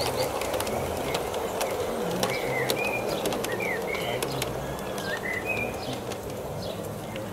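Birds singing in short chirps and whistled phrases over a steady low background murmur, with scattered light clicks.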